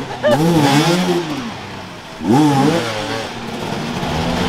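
Off-road enduro motorcycle engine revved hard twice, its pitch climbing and then dropping each time, running at lower revs in between.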